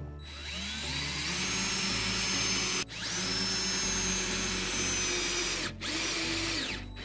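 DeWalt cordless drill running into an Azek PVC deck board. It spins up, runs steadily in three long stretches with two brief stops, and winds down near the end.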